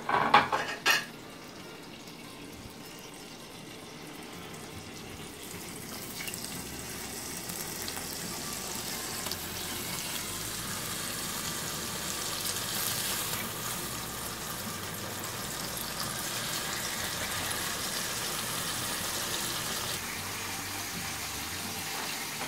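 Opah fillets frying in hot butter and olive oil in a pan, a steady sizzle that builds up about five seconds in and then holds even. Two short knocks come in the first second.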